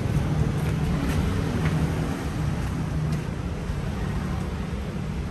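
Steady low rumble of street noise, with a few faint sharp pops.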